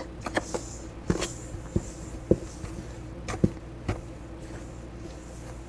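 Wooden spoon stirring dry flour in a stainless steel mixing bowl: soft scraping with scattered light taps and knocks of the spoon against the bowl, at irregular intervals, over a faint steady hum.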